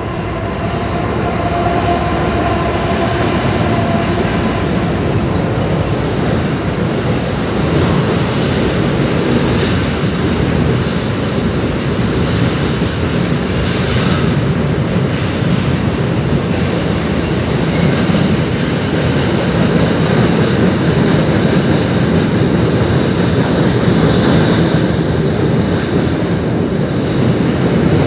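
Long CN freight train crossing a steel girder bridge, led by a GE ET44AC diesel locomotive. The sound grows louder over the first couple of seconds as the locomotive passes, with a steady engine tone, then becomes a steady rumble of freight cars rolling over the bridge with an occasional clank.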